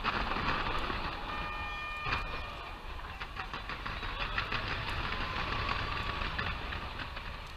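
Fireworks going off in a dense, rapid crackle of many small bursts, with a brief whistling tone in the second second and a heavier bang about two seconds in.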